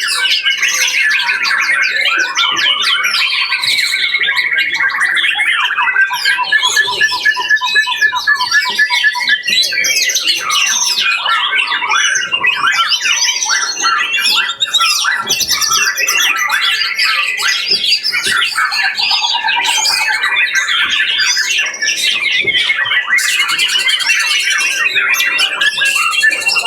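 Many caged songbirds singing at once: a dense, continuous mix of whistles, chatter and rapid trills, with a fast repeated trill standing out from about six to nine seconds in.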